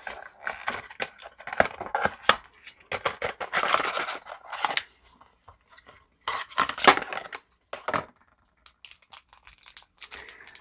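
Packaging of a set of fineliner pens being opened by hand: tearing and crinkling of the card and plastic wrapping, with sharp clicks as the plastic pens are handled and pulled from their tray. The busiest stretch comes in the first five seconds, with another burst around six to seven seconds, then only scattered faint clicks.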